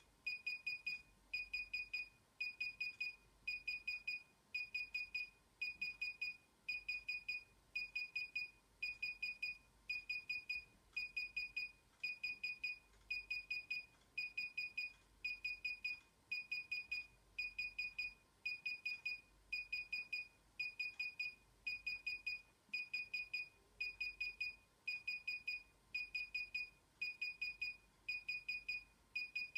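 DJI Inspire 1 remote controller beeping during a firmware install: short clusters of rapid high-pitched beeps repeating evenly, about three clusters every two seconds.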